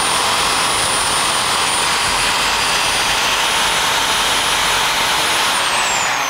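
Cordless reciprocating saw running flat out and cutting through a whitetail buck's velvet-covered drop tine. A steady high motor whine sits over the loud noise of the blade. Near the end the whine falls away as the saw winds down.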